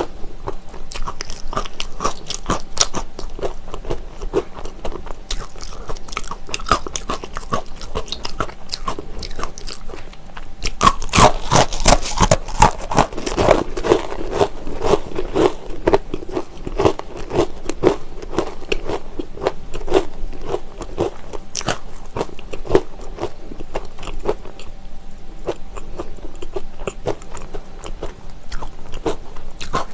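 Utz Honey Wheat Braided Twists, hard wheat pretzel sticks, bitten and chewed close to a clip-on microphone: a steady run of dry crisp cracks and crunches, densest and loudest about eleven to fourteen seconds in.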